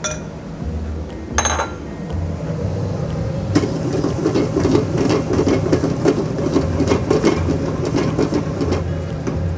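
A single metal clink of cookware about a second and a half in. Then, from about three and a half seconds, a dense crackling and bubbling: tomato purée boiling hard under a glass lid on a high gas flame.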